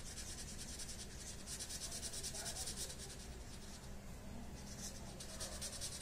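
Felt-tip sketch pen scribbling rapidly back and forth on paper, filling in a small area with colour: a faint, quick scratching.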